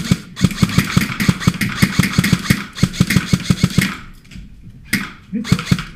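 Airsoft electric gun (AEG) firing on full auto: a long rapid, even burst of shots that stops about four seconds in.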